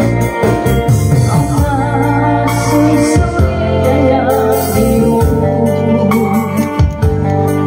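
A woman singing live through a microphone over an electronic keyboard playing sustained organ-like chords and a bass line; her voice comes in about a second and a half in, with a wavering vibrato.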